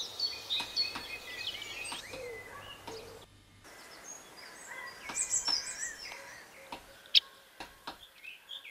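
Great spotted woodpeckers at the nest hole: repeated high, short calls, then after a brief break a burst of busy high chirping from the nest, with a few sharp taps near the end.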